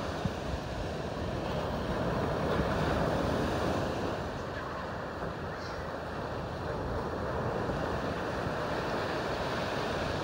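Ocean surf breaking and washing up the beach, a steady rushing that swells a little a few seconds in, with wind rumbling on the microphone.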